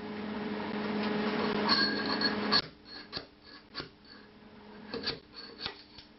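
A steady hum cuts off sharply about two and a half seconds in. Then come a handful of light metallic clicks and scrapes from a hand tool working a painted sheet-metal panel.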